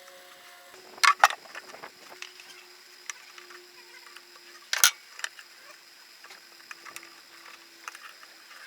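A few sharp knocks in the workshop: two close together about a second in and one more near the middle, with quieter small clicks of handling in between.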